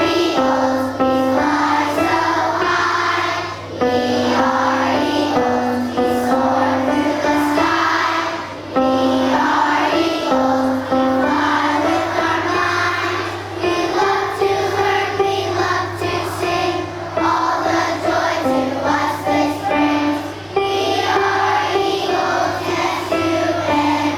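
A choir of children singing a song together in held, sustained notes, over a steady low hum.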